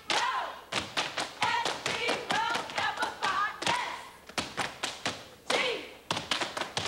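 Step team stepping: a quick rhythm of sharp stomps, claps and cane strikes on a stage floor, with voices calling out between some of the hits.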